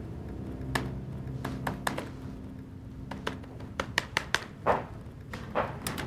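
Typing on a laptop keyboard: irregular, quick key clicks, some in short runs, over a faint low hum.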